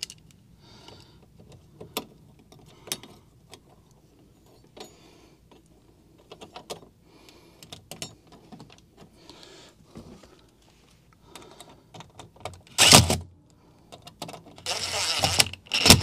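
Small screws and a sheet-metal cover plate being handled, with light clicks and ticks. Near the end a cordless drill-driver runs in two short bursts, driving sheet-metal screws into the HVAC unit's cabinet panel.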